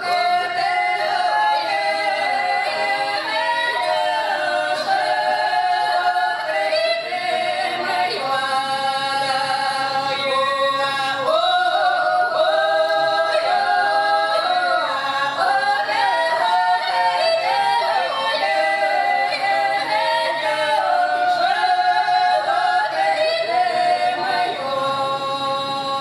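Three women singing a Russian folk song a cappella in close traditional polyphony. Their voices hold long drawn-out notes and move together, bending from pitch to pitch without a pause.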